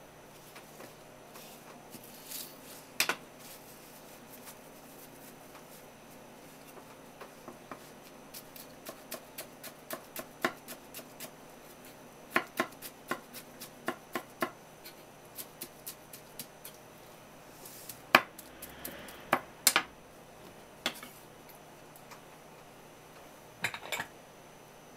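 Kitchen knife chopping shiso leaves on a wooden cutting board: sharp taps of the blade on the board, coming in quick irregular runs, with a few louder knocks.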